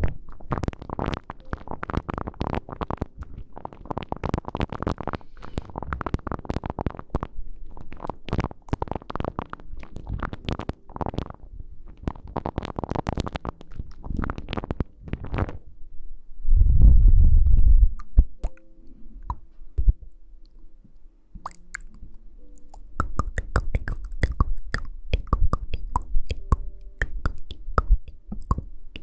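ASMR close-microphone rustling and rubbing: quick scratchy strokes in fast runs, then a loud low thump against the microphone just past halfway, followed by lighter, sparser crackling.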